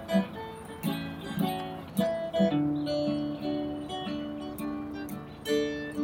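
Background music: an acoustic guitar playing a melody of plucked notes and chords.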